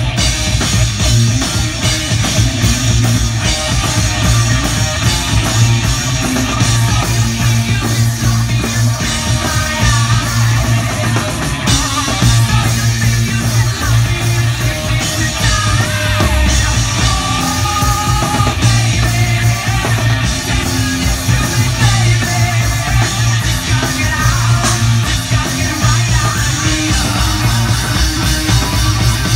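Live rock band playing loud: a pounding drum kit, distorted electric guitar and a singer, heard from the crowd in front of the stage.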